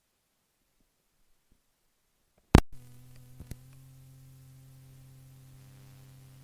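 Near silence, then the playback of an old audio cassette recording starts with a sharp click about two and a half seconds in and a smaller click a second later. A steady low electrical hum with faint tape hiss follows.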